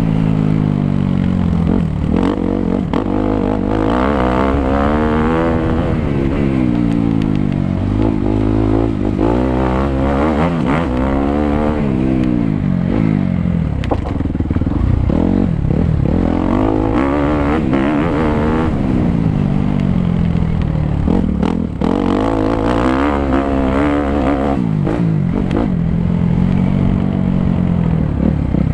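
Suzuki 250 motocross bike engine being ridden hard, its pitch repeatedly rising as the throttle opens and falling as it backs off, every second or two, with a few sharp knocks mixed in.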